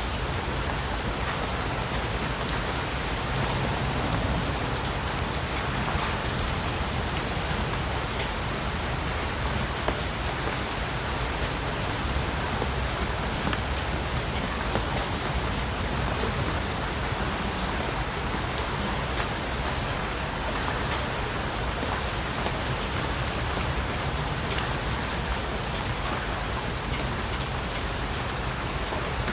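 Steady rain: a dense, even hiss with scattered ticks of single drops.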